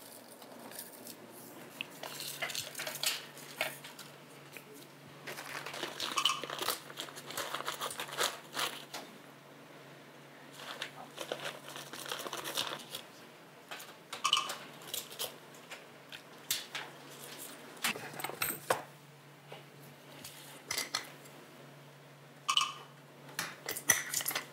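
Kitchen handling sounds: scattered clinks and clatters of dishes, a spoon and a steel pot, with some crinkling, over a faint steady low hum.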